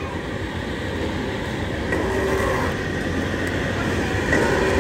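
Steady low rumbling background noise of a busy indoor play centre, with no single distinct event standing out.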